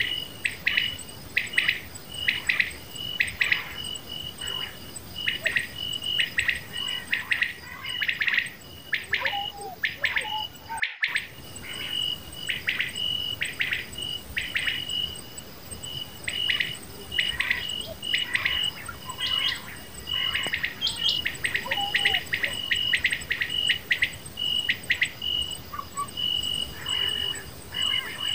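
Common quail calling: short, sharp, high notes repeated in quick groups, over and over, with a steady high insect trill behind them.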